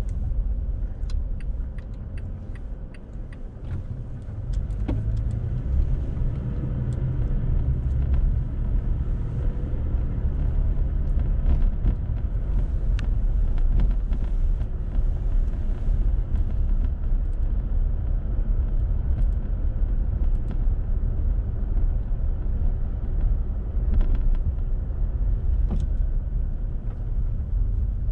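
Car driving, heard from inside the cabin: a steady low rumble of engine and road noise. It drops for a moment a few seconds in at a stop sign, then rises again as the car pulls away, with a few faint clicks and rattles over it.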